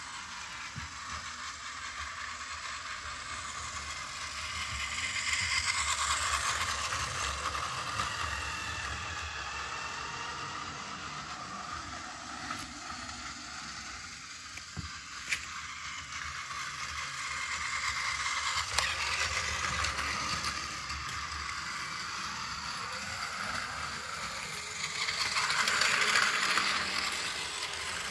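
Battery-powered Plarail toy train (Keihan 10000 series) running on plastic track: a steady motor-and-gear whir that grows louder three times as the train passes close by, with a sharp click near the middle. The used power car is running normally, its gears uncracked, as the owner reports.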